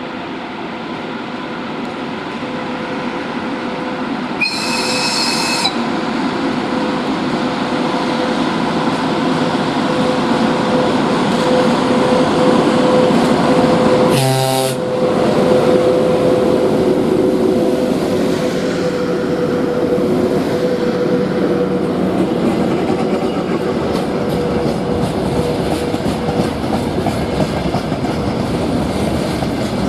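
A VL80K electric freight locomotive approaching and passing with a steady hum, followed by the rumble and rhythmic clatter of freight wagons rolling by. A short high-pitched signal sounds about five seconds in, and a brief horn blast comes around the middle as the locomotive draws level.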